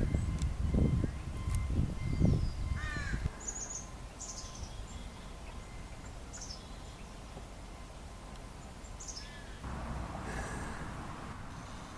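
Wild birds calling: a few short, stacked calls in the first three seconds, then scattered short, high chirps through the rest. A low rumble sits under the first three seconds, and a brief swell of noise comes near the end.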